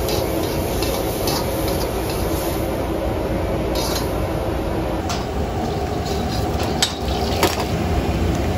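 Metal ladle scraping and clinking against a wok and a plate as a stir-fry is pushed out onto the dish, with a few sharp metallic clinks over a steady background roar of a busy kitchen.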